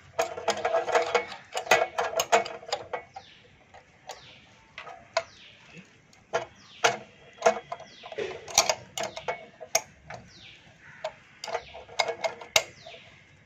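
Irregular metal clicks and clinks of a spanner on the arbor bolt and flange while the cutting disc is fitted and tightened on a Gaocheng cut-off machine. The clicks come thick and fast for the first few seconds, then sparser.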